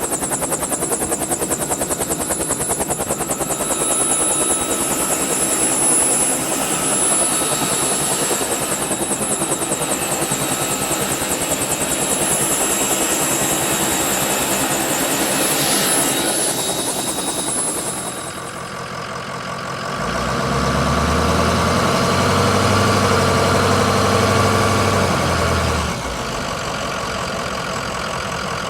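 Helicopter running, its rotor beating in a rapid steady pulse under a high turbine whine. About two-thirds of the way through it fades, and a different vehicle engine starts running with a deep low hum. That engine stops abruptly a few seconds before the end, giving way to a quieter engine sound.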